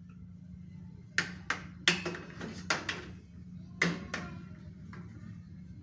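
A string of light knocks and clacks, about eight in a few seconds, from hard objects being handled or bumped, over a steady low hum.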